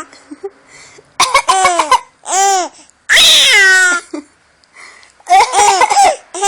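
A baby laughing in short, cough-like bursts: four high-pitched laughs with brief pauses between them.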